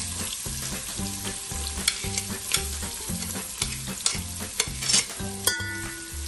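Diced red onion sizzling in hot butter and oil in a large aluminium pot, a steady hiss with scattered sharp crackles and spits.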